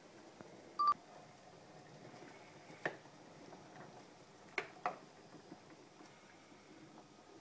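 A short electronic beep about a second in, then a few light knocks of a wooden spoon against a stainless steel pot as spaghetti is stirred in the water.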